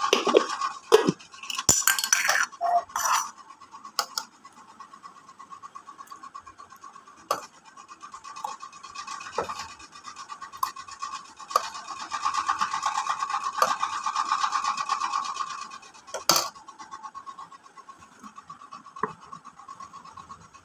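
Electric ceiling fan running overhead with a steady buzzing hum, loud enough to intrude on the recording. A steel ladle clinks a few times against a steel bowl and a glass as the drink is poured.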